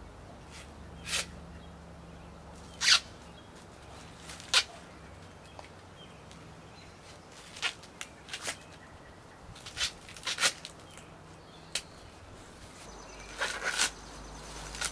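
Corn husks being torn off ears of corn by hand: short ripping tears every second or two, with a quick run of rips near the end.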